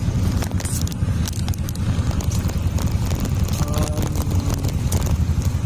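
Road and traffic noise from a moving vehicle in city traffic: a steady low rumble with scattered light clicks.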